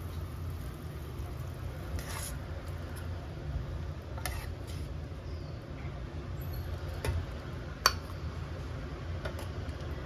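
A metal ladle clinking and scraping against the cookware while serving eggplant and tofu simmered in coconut milk. There are a few light clinks, the sharpest about eight seconds in, over a steady low rumble.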